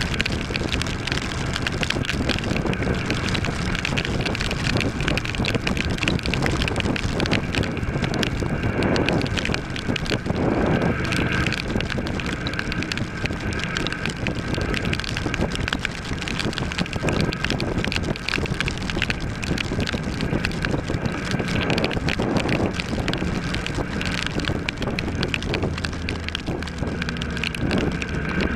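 Steady wind rush on the microphone of a 2013 Kawasaki ER-6 parallel-twin motorcycle riding in torrential rain, with the engine running underneath.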